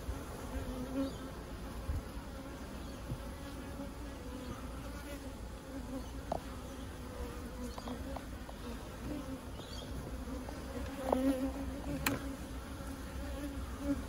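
Honey bees from an open hive buzzing in a steady low hum, with a few small ticks and one sharp click near the end.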